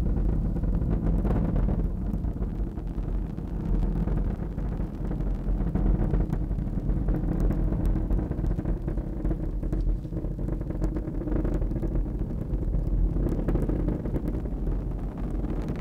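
Falcon Heavy's 27 Merlin engines firing during ascent: a steady low rumble with faint crackling.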